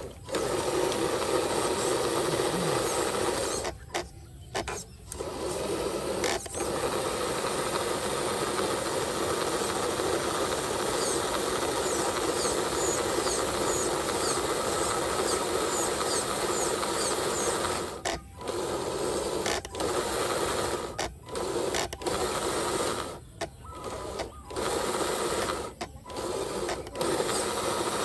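A radio-controlled model truck's small electric drive motor and gearbox whirring as it crawls along. It stops and restarts briefly about four seconds in, and several times in the second half.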